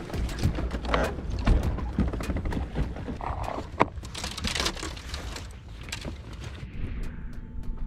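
Scattered knocks, clicks and thumps of fishing rods and tackle being handled on a bass boat's front deck, with a few short rustles.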